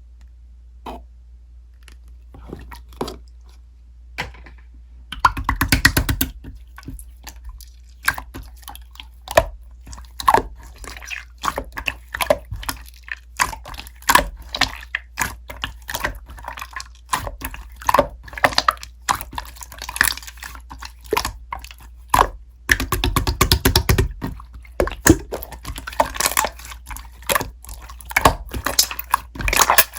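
Slime being squeezed, pressed and poked by hand, giving sticky clicks and pops. After a quiet first few seconds, there are two runs of rapid crackling, about five seconds in and again past twenty seconds.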